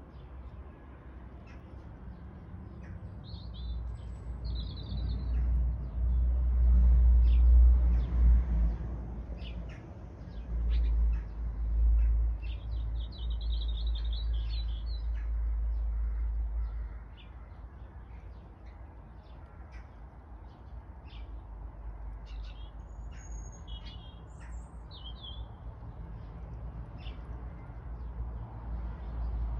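Small birds chirping and singing in short, scattered phrases, over a low rumble that swells about five seconds in and falls away again after about seventeen seconds.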